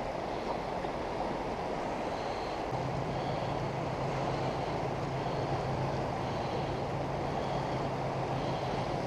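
Jet boat under way on the river: a steady rush of water and wind with the boat's engine, whose low steady drone comes in about three seconds in and holds.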